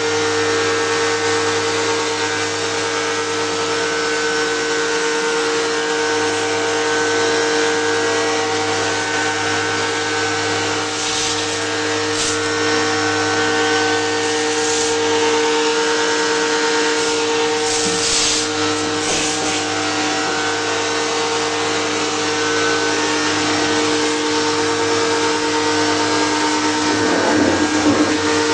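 A motor running steadily with a constant hum of two steady tones over a hiss, and several short bursts of sharper hiss in the middle.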